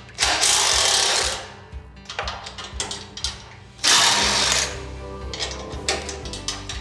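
DeWalt cordless impact driver hammering bolts into a steel machine frame in two short bursts, about a second long near the start and a shorter one near four seconds in, with light clicks and rattles between them.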